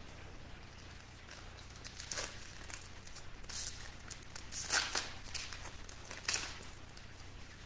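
Foil wrapper of a baseball card pack crinkling in several short bursts as gloved hands handle it and tear it open.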